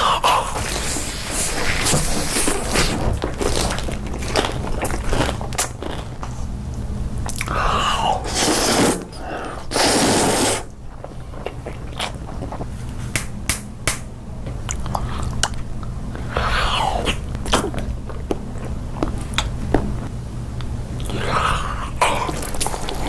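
Close-miked eating: crunchy bites and chewing, with many sharp crunches throughout and a loud noisy burst lasting about a second near the middle.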